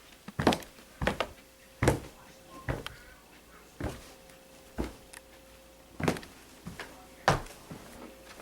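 A series of uneven knocks and thuds, about one a second, over a faint steady hum.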